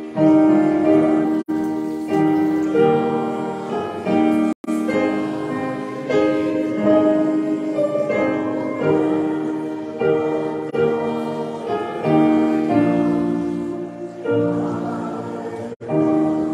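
Congregation singing a hymn together with piano accompaniment, the chords changing about every second. The sound cuts out for an instant three times.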